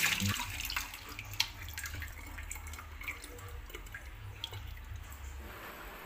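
Raw chicken feet being washed in a stainless steel bowl: a short splash of running water at the start, then scattered drips and small wet clicks.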